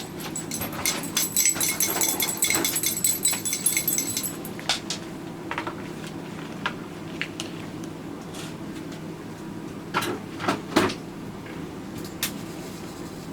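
A dog's metal collar jangling for about four seconds, with ringing metallic jingles. After it come scattered light clicks and a few louder knocks, like glass jars or dishes, near the end.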